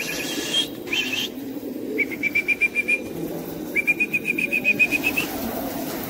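A loft full of pigeons: a low murmur of cooing and wing flutters, with a bird's high chirps coming in two rapid runs about two and four seconds in.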